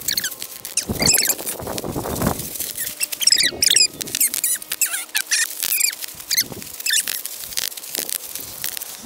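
Bubble wrap twisted and squeezed by hand: irregular sharp pops of bursting bubbles mixed with high squeaks of the plastic rubbing on itself.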